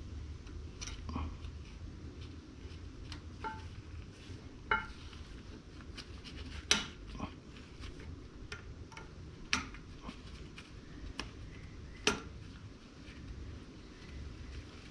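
Hand tools and metal parts clinking and tapping against each other in an irregular series of sharp clinks, a few with a brief metallic ring.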